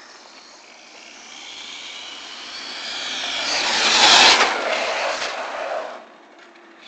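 A 1/10-scale 4x4 RC short course truck runs at full throttle on asphalt, its 3650-size 3500KV brushless motor on 4S giving a high electric whine over tyre hiss. The sound grows louder as the truck approaches, peaks about four seconds in as it passes close by, then falls away suddenly about six seconds in.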